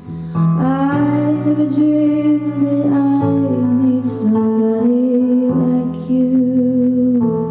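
A woman singing long, held notes in a slow ballad over sustained piano-style keyboard chords.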